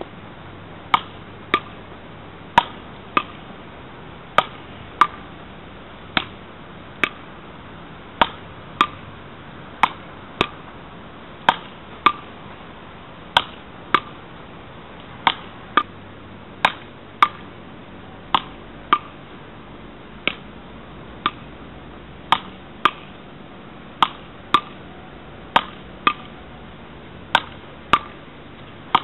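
A long beach-paddle rally: a small hard ball cracks off the paddles about thirty times, in an uneven back-and-forth rhythm of roughly one or two hits a second, over a steady background hiss.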